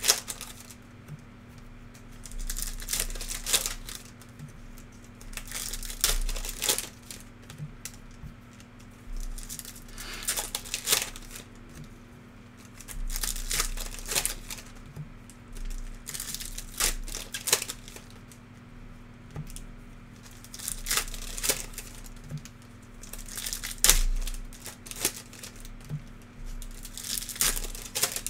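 Plastic trading-card pack wrappers crinkling and tearing as packs are ripped open, in short bursts every second or two with quieter gaps between.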